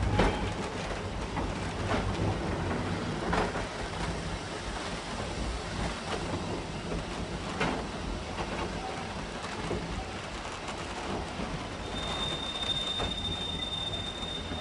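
Train running slowly over old jointed track: a steady low rumble with sharp wheel knocks at irregular intervals of a second or two. About twelve seconds in, a thin, steady, high-pitched wheel squeal joins as the track curves.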